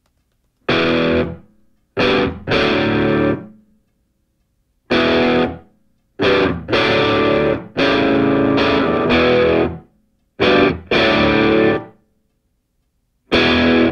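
Background music: distorted electric guitar playing chords in stop-start stabs and short riffs, each cut off abruptly into silence.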